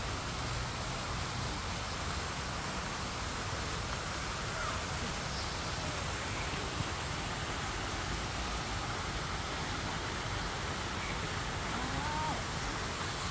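Steady outdoor night ambience: a constant hiss with wind rumbling on the microphone, and a few faint short chirps scattered through it. One small click about seven seconds in.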